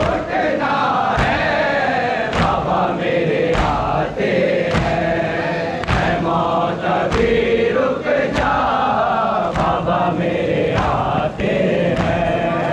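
A crowd of men chanting a noha (mourning lament) together, with a sharp, collective hand-on-chest beat (matam) landing about every 1.2 seconds.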